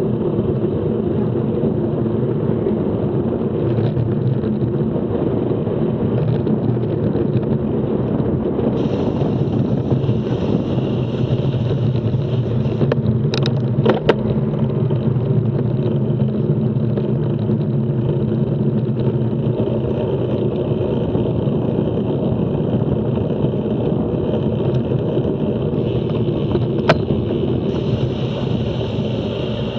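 Steady rumble of road and traffic noise recorded from a moving bicycle riding a city cycle lane beside passing cars. A few sharp clicks come about 13 to 14 seconds in and again near the end.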